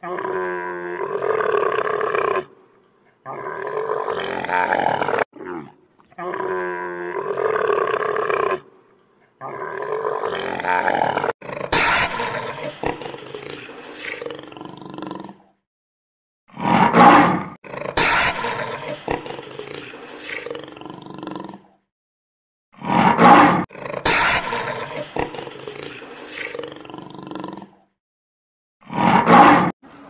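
A series of loud animal roars and bellowing calls, one after another with short gaps between. The later calls each open with a loud burst and then trail off.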